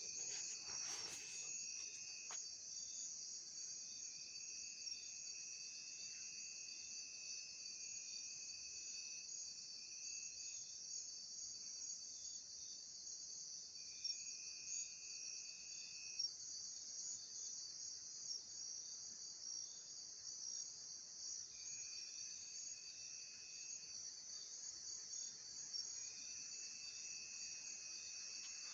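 Night insect chorus: a dense, steady, high-pitched trilling, with a second, lower continuous trill that sounds in stretches of a few seconds and then stops. A brief knock about a second in.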